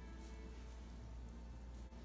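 Faint background music over a steady low hum.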